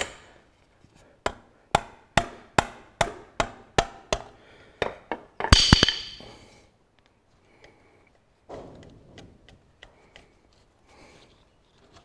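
Steel tool knocking on a screwdriver driven up inside a Ferguson tractor's front king pin housing to collapse the old king pin bush at its split: about a dozen sharp, evenly spaced metallic knocks, then a louder clattering clash with a ringing tone around halfway, and lighter knocks and handling sounds near the end.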